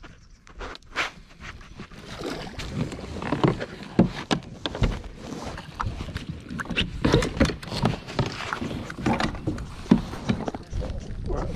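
Irregular knocks, bumps and rustling from movement in a fishing kayak, some of them sharp and loud.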